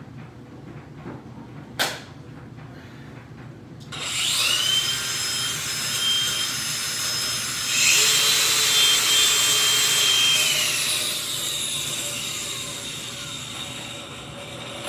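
Two cordless angle grinders running free, a DeWalt DCG413 brushless and a Ryobi, each giving a high motor whine. After a sharp click about two seconds in, the first starts about four seconds in and the second joins about eight seconds in, the loudest point. The pitch sags slightly over the last few seconds.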